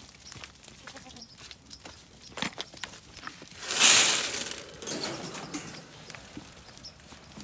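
Goats bleating as they crowd in for feed, among rustling and small knocks, with one loud harsh sound about four seconds in.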